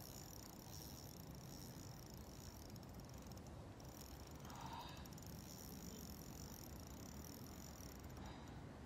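Faint, steady high-pitched ticking buzz of a spinning reel's drag giving line to a hooked fish, the reel "crying". It grows stronger partway through and breaks off briefly near the end.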